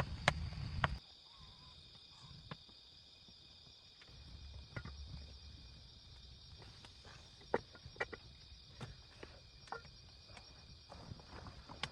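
Steady high-pitched drone of insects, likely crickets, with scattered sharp clicks and knocks, the loudest a few in quick succession just past the middle. A low rumble in the first second stops abruptly.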